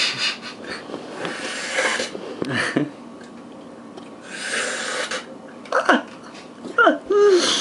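A man breathing and snorting noisily in several hissy bursts, broken by a few short grunt-like vocal sounds.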